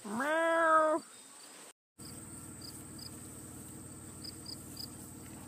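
A person gives a drawn-out moo, imitating a cow; it rises in pitch and then holds for about a second. Then crickets chirp a few times over a steady low hum.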